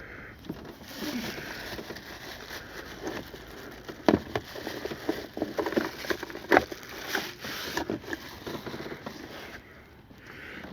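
Rustling and handling noise with scattered light knocks and clanks as metal seat mounts are fitted in the rear of a car, the sharpest knocks about four, six and a half, seven and eight seconds in.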